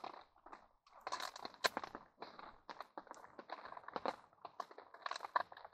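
Crinkling and rustling of a Pad Thai meal's packaging as it is opened and handled, a dense run of small irregular crackles that starts about a second in.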